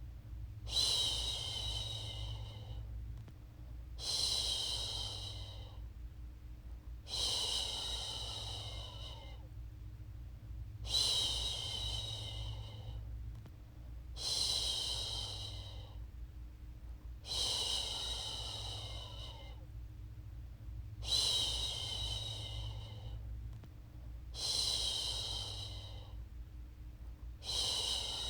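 A woman shushing, a long 'shhh' hiss about two seconds long repeated roughly every three and a half seconds, nine times in all, over a steady low hum. It is a looped shushing sound meant to lull a baby to sleep.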